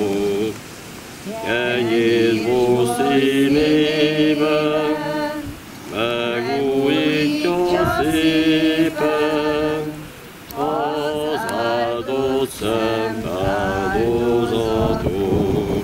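Chanted liturgical singing during a Catholic Mass. It comes in long sung phrases broken by short pauses.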